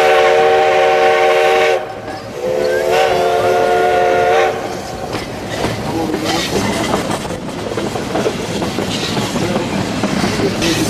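Steam locomotive whistle blowing two long blasts, each a chord of several notes held about two seconds, one right after the other. After that comes the steady rumble and rattle of the train running along the track.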